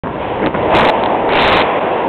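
New York City subway train approaching through the tunnel into the station: a loud, steady rumble, with two brief sharper noises about a second and a second and a half in.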